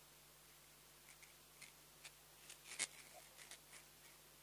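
Faint, scattered crackles of a puffed krupuk cracker being bitten and chewed as quietly as possible, with one sharper crack a little before three seconds in.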